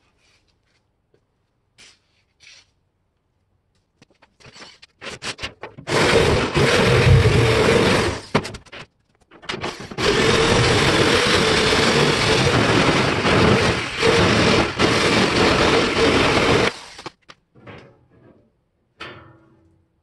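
Handheld power tool cutting the lid out of a steel oil drum, running in two spells, about three seconds and then nearly seven, with a short break between. A few light clicks and knocks come before it starts.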